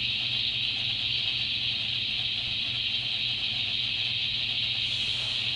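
Radio Shack DX-302 shortwave receiver hissing steadily with static through its speaker, tuned in sideband mode near 14.3 MHz while no station is coming through. A low hum sits underneath.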